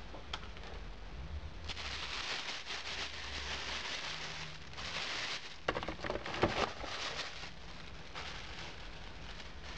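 Packaging being handled during a keyboard unboxing, rustling and crackling. A few sharp clicks and knocks come about six seconds in.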